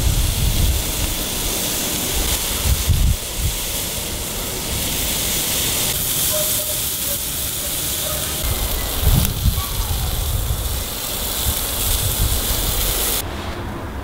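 Whole dorado fish sizzling on a grill grate over hot coals, a steady hiss that stops near the end. Low rumbles of wind on the microphone come a few times.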